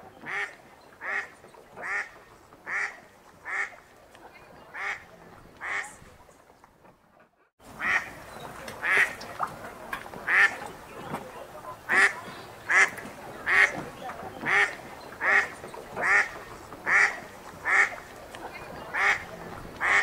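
Mallard duck quacking in a steady run of single quacks, a little more than one a second. The quacking stops a little over six seconds in, then resumes louder about a second later.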